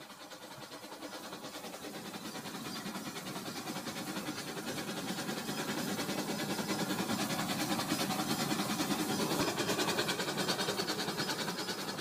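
Battery-powered toy train running on plastic track, its motor whirring and wheels clattering in a rapid, even rhythm. It grows steadily louder as it approaches and passes close by, easing off slightly near the end.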